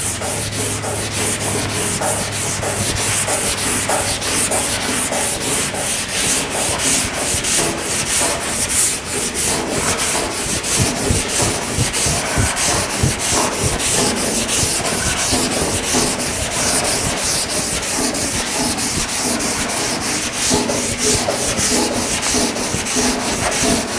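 240-grit sandpaper on a hand sanding block scrubbing back and forth over a primed steel 1950 Chevy truck fender, in quick even strokes, about three a second. This is block sanding through dry guide coat to show up low spots, and the paper cuts easily without clogging.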